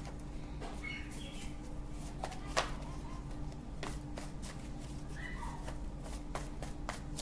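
Tarot cards being shuffled by hand: irregular soft clicks and flicks of card edges, one sharper snap about two and a half seconds in, over a steady low hum.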